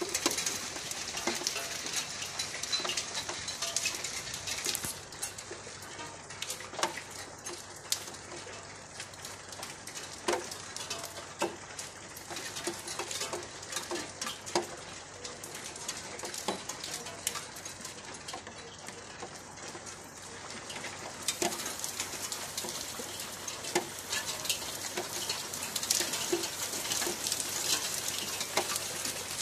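Rain falling: a steady hiss of rain with a dense patter of separate drops. It eases about five seconds in and grows heavier again about two-thirds of the way through.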